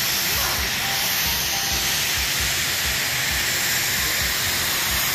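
Ski-resort snowmaking guns spraying artificial snow: a loud, steady hiss of air and water spray, with regular low thumps underneath.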